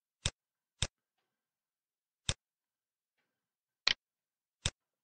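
Five sharp single clicks of a computer mouse, spaced unevenly: two close together near the start, one about two seconds in, and two more near the end.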